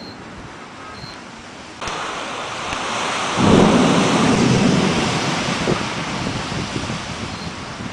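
Close thunder: a sudden sharp crack nearly two seconds in, then a heavy low rumble building about a second later and slowly rolling away, over the steady hiss of rain.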